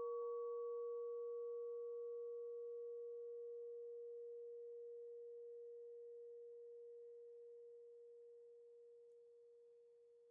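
Church bell's hum dying away after a strike: one steady low tone fading slowly and evenly, its higher overtone dying out about halfway through.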